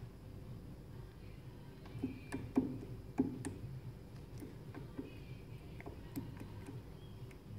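A few light clicks and knocks of metal engine parts being handled, the strongest about two to three and a half seconds in, over a low steady hum.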